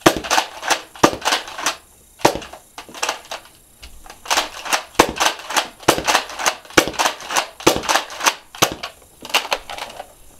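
Modified Nerf Retaliator pump-action dart blaster being fired repeatedly: sharp plastic clacks of the pump and plunger shots in quick runs of about three or four a second, broken by short pauses.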